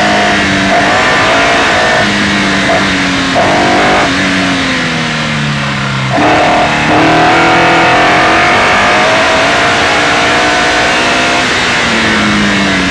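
Westfield SEW's engine at full effort, heard from on board during a sprint run: the revs sag for a couple of seconds, change abruptly about six seconds in, then slowly fall and climb again near the end. Wind and road noise run underneath.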